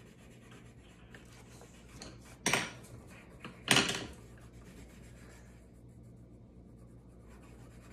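Colored pencils scratching and rubbing on paper, faint, with two louder rubbing strokes a little over a second apart about two and a half seconds in.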